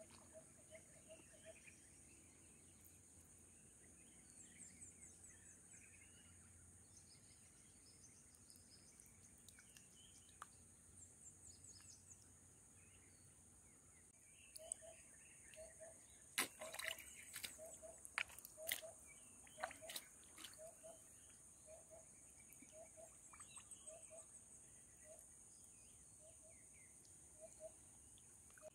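Near silence: faint outdoor ambience with a steady high hiss. From about halfway through, a short low note repeats a little faster than once a second, and a few sharp clicks come in a cluster a few seconds after it starts.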